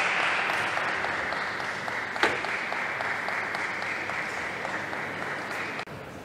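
Arena audience applauding the end of a table tennis game, slowly dying away, with one sharp knock about two seconds in. The applause cuts off abruptly near the end.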